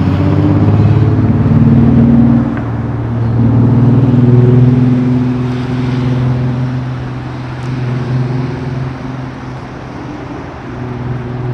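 Motor vehicle engine running close by with a low, steady hum. It grows louder twice in the first five seconds, then gradually fades.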